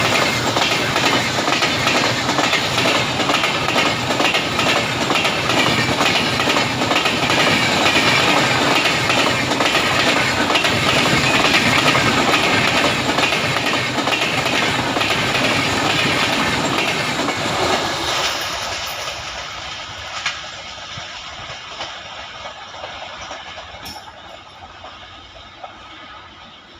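Wheels of an express train's LHB passenger coaches running over the track at speed, a loud rumbling clatter with a quick, even clickety-clack rhythm. About 18 seconds in it falls away and fades steadily as the train moves off.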